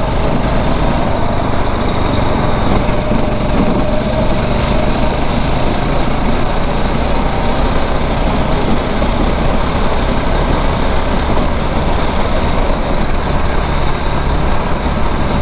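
A 9 hp kart's small engine running steadily under way around the track.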